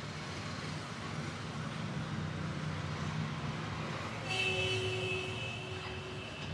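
Steady rumble of roadside traffic. About four seconds in, a high pitched tone with several notes sounds for about two seconds and stops.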